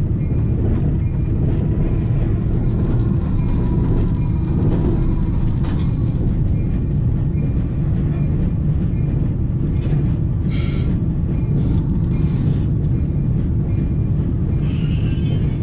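Diesel locomotive running steadily as the train rolls, heard from inside the cab as a continuous heavy low rumble. Brief higher-pitched noises come through about ten seconds in and again near the end.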